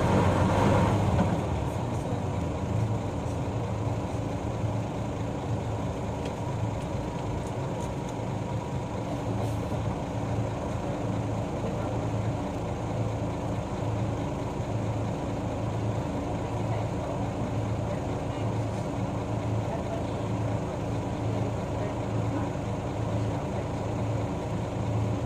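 Route bus's diesel engine running steadily at low revs, mostly idling, a constant low drone with a slow regular pulse. A louder rush of sound comes in the first second and a half.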